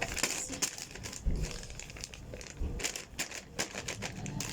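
Plastic Ziploc bag crinkling and crackling in the hands as material stuck to its inside is peeled away, in irregular rustles and sharp crackles.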